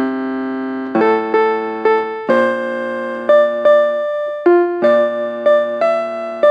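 Piano-style keyboard playing a slow instrumental passage of a ballad accompaniment, with sustained chords and single notes struck about every half second to a second, each ringing and fading. No voice is singing over it.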